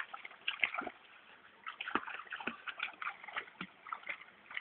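A dog splashing and wading in a shallow creek: irregular sloshes and splatters of water, with a brief lull about a second in.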